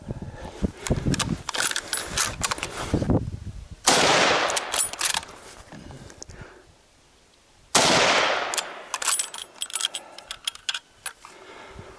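Two rifle shots about four seconds apart, each a sudden loud crack followed by a long echoing tail. Between them come crunching footsteps and small snaps in dry leaf litter.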